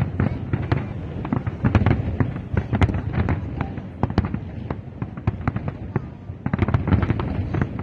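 Fireworks display going off: a rapid, irregular run of sharp cracks and bangs over a constant low rumble, growing denser about a second before the end.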